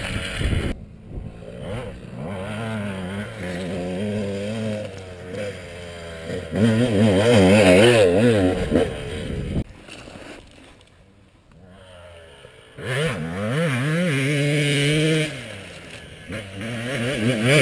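Dirt bike engines revving on a steep hill climb, the pitch wavering up and down. The sound is loudest about eight seconds in, as a bike climbs close past. It breaks off abruptly a few times, with a quieter stretch around ten to twelve seconds in.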